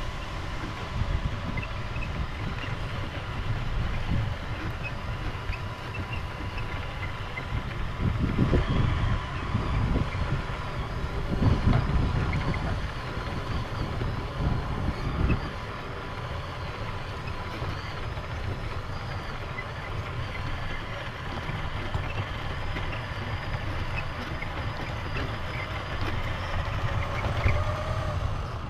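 1/14 Tamiya Grand Hauler radio-controlled truck driving through wet grass, its electric motor and gearbox running. A faint steady tone sits over a low rumble that swells several times from about 8 to 15 seconds in.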